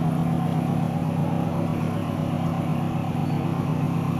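A steady low mechanical drone, with a constant hum and no change in pitch.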